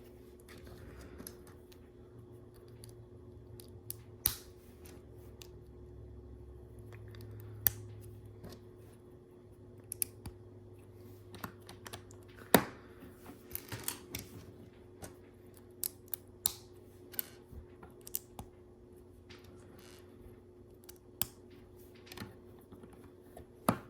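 Plastic LEGO pieces clicking as they are handled and pressed onto a build: scattered sharp clicks at irregular intervals, the loudest about halfway through, over a faint steady hum.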